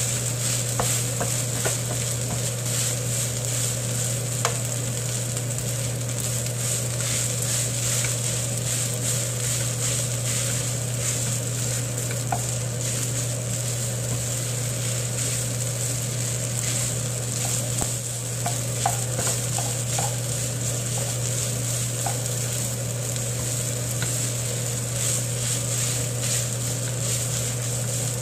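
Kimchi fried rice sizzling in a nonstick frying pan while a spatula stirs and scrapes through it, with scattered light clicks of the spatula against the pan. A steady low hum runs underneath.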